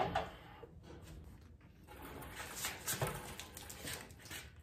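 Light knocks and rattles of an engine and transmission being lowered on a shop engine hoist and guided into a Jeep's engine bay, the loudest about three seconds in.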